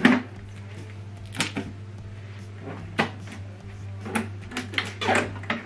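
Blue shipping tape being peeled off the plastic casing of a new Epson WF-2960 printer: several short rasping rips at uneven intervals, with light handling of the casing, over a steady low hum.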